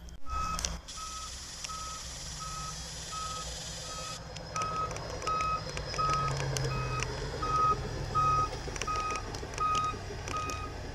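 Backup alarm on a hi-rail maintenance-of-way pickup truck beeping steadily, about two beeps a second, over the low rumble of the truck's engine as it runs along the rails.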